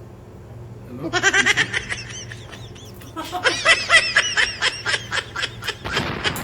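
Loud human laughter in two bouts, a short one about a second in and a longer one from about three seconds in, each a quick run of pulsed breaths.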